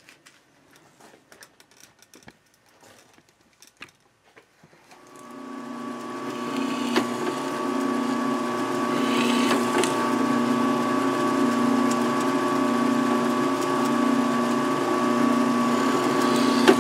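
Benchtop drill press motor running: a steady hum that builds up about five seconds in and then holds, while the bit bores through a wooden board with a paper pattern glued on it. Before it starts there are only a few light handling clicks.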